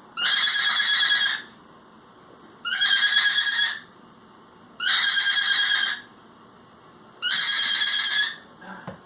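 Cockatiel giving four loud, drawn-out calls, each lasting about a second and repeating every two to two and a half seconds.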